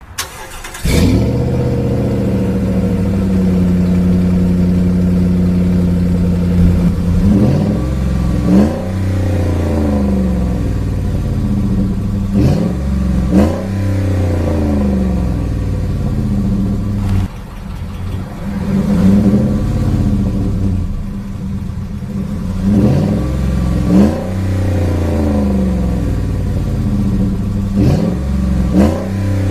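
2008 Dodge Ram 1500's 4.7-litre V8 starting up about a second in and settling into a steady idle. From about seven seconds on it is revved several times in short blips, each rising and falling back to idle.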